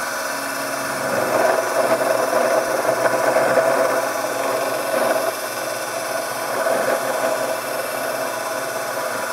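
Sherline vertical mill with a square end mill cutting into the vise: a steady machining noise from the spindle and cutter that grows louder for a few seconds from about a second in, then eases and briefly swells again twice.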